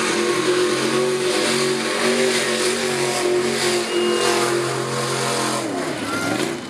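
Mud-run truck's engine running hard at steady revs, then dropping in pitch and climbing back again about six seconds in.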